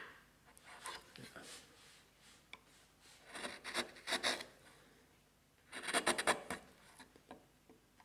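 A sharp chisel paring wood by hand pressure, slicing thin shavings from the floor of a recess in a wooden block: three bouts of short crisp scraping strokes, the loudest about six seconds in.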